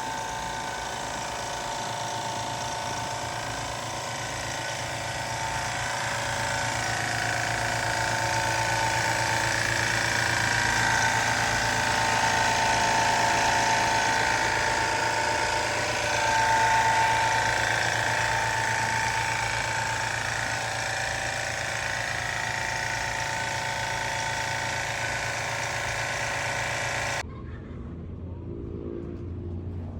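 Car engine running steadily with a whine over it, growing a little louder towards the middle. It cuts off abruptly near the end, and a quieter, lower sound follows.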